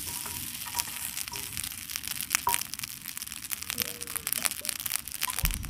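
Light, irregular crackling and ticking as cooked broken rice is scraped from a steel bowl into a hot aluminium karai on a clay wood-fired stove.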